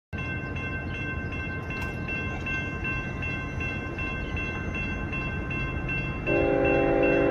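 Railroad grade crossing bell ringing rapidly, about two and a half strikes a second, warning of an approaching train. About six seconds in, an approaching freight locomotive's horn starts, several tones sounding together, and becomes the loudest sound.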